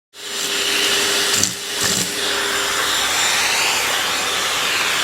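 Vacuum cleaner running steadily with a whining hum, with a brief dip and a couple of knocks about a second and a half in.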